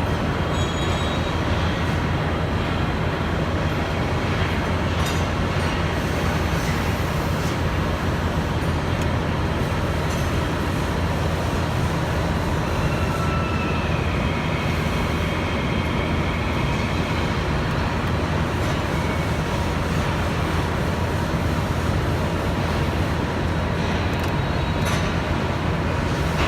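Steady industrial machinery noise at a constant level, mostly a low hum. A faint high tone rises about halfway through and lasts a few seconds, and a few faint clicks come through.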